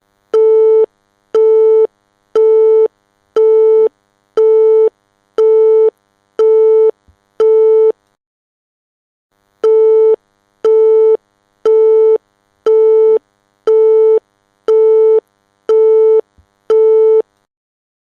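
Telephone busy tone after a hang-up: a single steady beep, about half a second long, repeating once a second. Eight beeps, a pause of about two seconds, then eight more, signalling that the call has ended and the line is disconnected.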